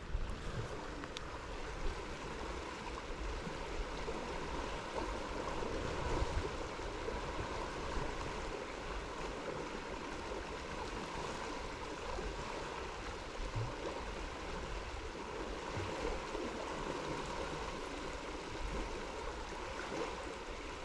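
River water flowing steadily, an even continuous noise.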